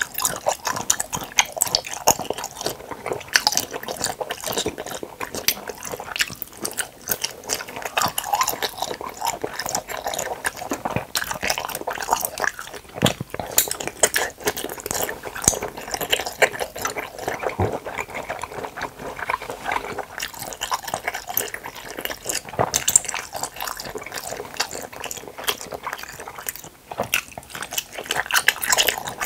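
Close-miked chewing of jelly cups: a steady stream of small wet clicks and smacks of mouth and jelly, with bites into firm gelatin jelly.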